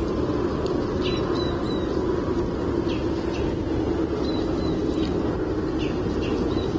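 Short high bird chirps, repeated every second or so, over a steady low rumbling noise on the nest-cam microphone.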